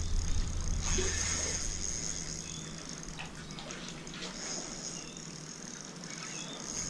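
Shallow saltwater lapping and sloshing around a wading angler and the dock pilings. A low rumble, likely wind on the microphone, fades out about a third of the way in.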